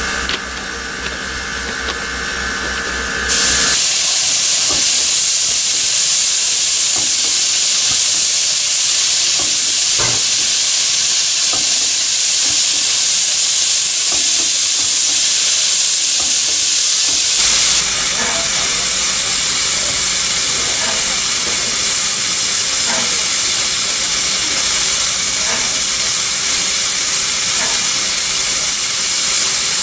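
Steam locomotives standing in steam, with steam hissing loudly and steadily as it vents, after a few seconds of low machine hum at the start. About halfway through the hiss changes and a low rumble joins it.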